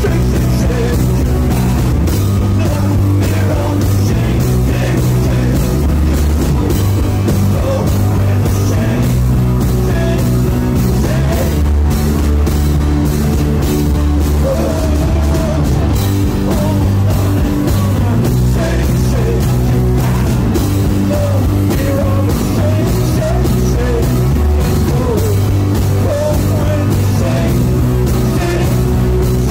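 A rock band playing live and loud: electric guitar, bass and drums, with a male singer, the drums keeping a steady beat.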